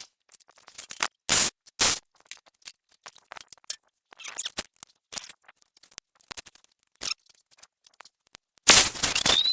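Scattered light clicks and knocks of work on metal, with two sharper knocks about a second and a half in, then a burst of harsh noise near the end.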